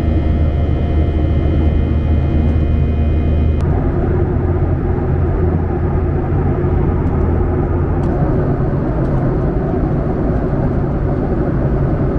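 Jet airliner noise: a loud, steady low rumble with a set of steady whining tones over it. The tones cut off abruptly about three and a half seconds in, leaving the rumble and a rushing hiss.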